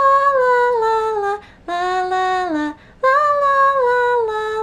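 A high solo voice singing unaccompanied, wordless held notes: three long phrases, each stepping down in pitch toward its end, with short breaths between them.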